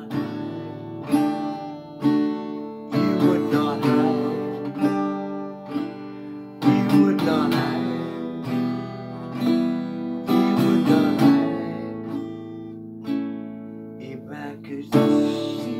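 Acoustic guitar played solo in strummed chords, each chord struck and left to ring, a new one every second or two.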